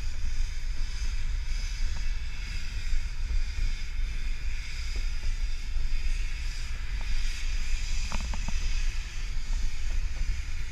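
Wind buffeting a microphone held out of a moving passenger car's window, over the steady rolling noise of a narrow-gauge train on the track. A few short clicks come about eight seconds in.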